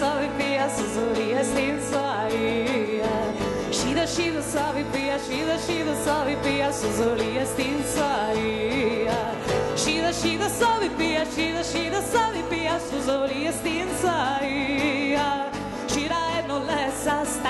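Live band music: acoustic guitar, electric bass and drums, with a woman singing into a microphone, some notes wavering with vibrato.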